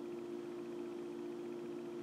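A steady, even hum of room tone with no distinct events.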